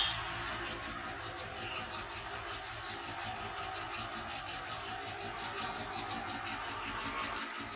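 Steady background hum of a shop open onto a market street, with faint traffic.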